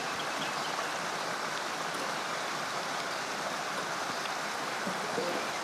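Steady rush of a flowing stream, an even water noise that holds at the same level throughout.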